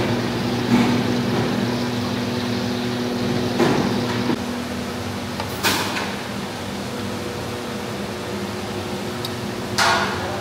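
Steady machine hum of a commercial kitchen, with a few short metal scrapes and clinks as a metal skimmer digs rice out of a large pot and tips it onto a plate; the sharpest come about halfway through and again near the end.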